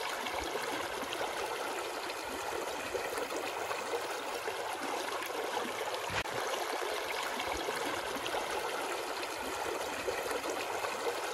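Shallow river running over rocks and small rapids: a steady rush of flowing water.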